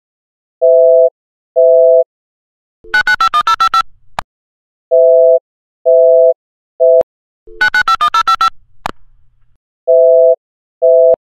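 A weird telephone busy signal heard through the handset. Half-second pulses of a low two-note beep alternate with a quick run of rapid electronic notes, repeating about every five seconds, with a few sharp clicks between.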